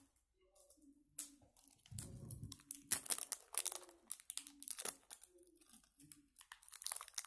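Crinkling and tearing of the seal being peeled off a small plastic slime container, in scattered crackles that grow dense and steady from about two seconds in. A short dull handling rumble comes about two seconds in.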